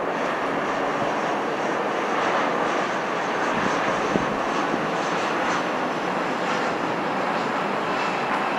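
Airbus A320 airliner on final approach with its landing gear down, its jet engines and airframe making a steady rushing roar as it flies past.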